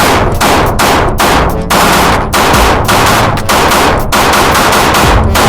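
A rapid string of handgun shots from a striker-fired pistol, about two a second, each with a sharp crack and a ringing tail.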